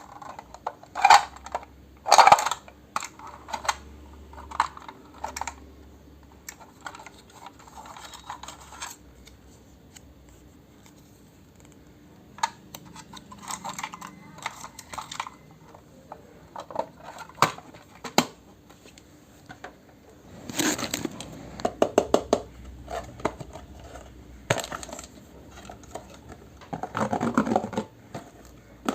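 Small toy kitchenware pieces being handled and set down: scattered light clicks and clinks, with quick runs of rattling clatter about two-thirds of the way in and again near the end.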